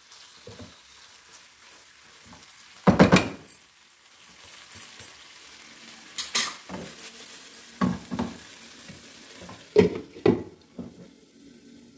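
Beef pieces sizzling in a non-stick frying pan while a spatula turns them and knocks against the pan; the loudest knock comes about three seconds in. Near the end a couple of clatters as a glass lid goes on, and the sizzling turns quieter under it.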